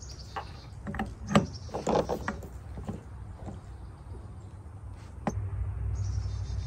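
Clinks and knocks of a steel combination wrench and metal fuel fittings as a fitting is tightened into an AirDog DF-165-5G lift pump housing. The sharpest knock comes about a second and a half in, and a low steady rumble comes in after about five seconds.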